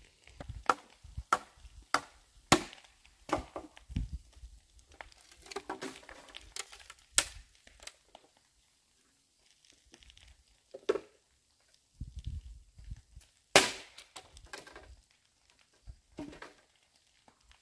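Bamboo being chopped: a series of sharp, irregularly spaced strikes, several in quick succession in the first few seconds, then sparser, with the loudest near the end.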